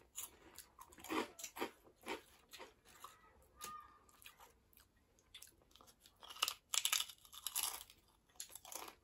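Crunching and chewing of cheese-flavoured potato chips and corn sticks, in irregular bites, with the loudest run of crunches about six and a half to eight seconds in.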